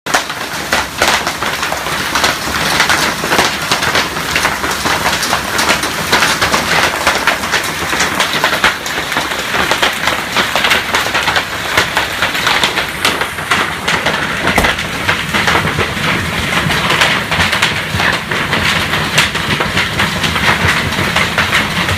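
Golf-ball-size hail pelting down in a dense, continuous clatter of many hard impacts over a steady hiss.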